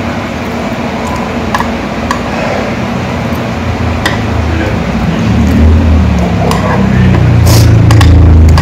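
Restaurant background of voices, with metal chopsticks clicking against the tray and dishes a few times. A low rumble swells in the second half.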